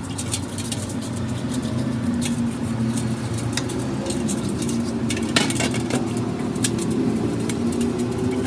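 A motor running steadily with a low hum, with scattered short clicks and ticks over it.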